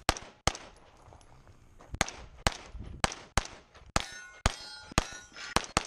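Open-class race pistol with a red-dot sight and compensator being fired rapidly, about a dozen sharp shots, mostly in quick pairs half a second apart, with short gaps while the shooter moves between targets. From about two-thirds of the way in, a metallic ringing hangs on after the shots.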